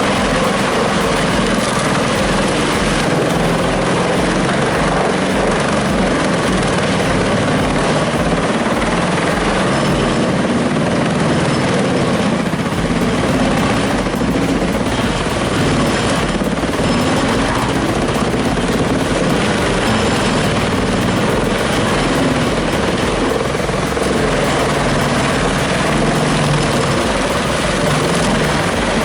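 Loud, steady running of a heavy engine-driven machine: dense mechanical noise that holds without a break.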